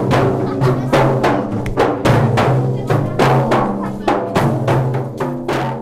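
Music with a fast, even drum beat, about three strikes a second, over sustained low notes, fading near the end.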